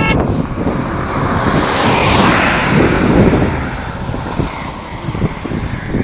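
The 105mm electric ducted fan of a Huang Sai J-10A model jet passing overhead. Its rush of fan noise swells to a peak about two seconds in, then fades away.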